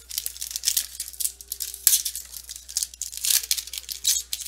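Foil trading-card pack wrapper being torn open and crinkled by hand, a run of irregular crackling rustles with one sharp snap just under two seconds in.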